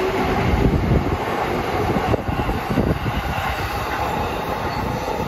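Electric commuter trains running past on the tracks, the wheels clattering over rail joints, with a faint steady whine.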